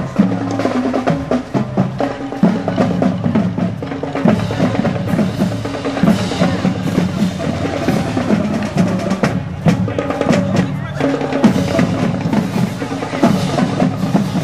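High school marching band playing as it marches, its snare and bass drums loudest, beating a steady rhythm over sustained low notes.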